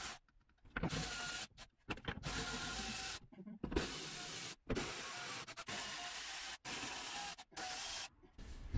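Milwaukee cordless electric ratchet spinning Torx bolts out of a car's engine undertray, running in a series of short bursts with brief silences between, each burst a steady high whine.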